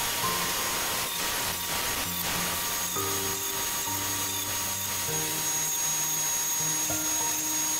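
Background music with held notes that change about once a second, over the steady whine and hiss of a Delta Unisaw table saw running.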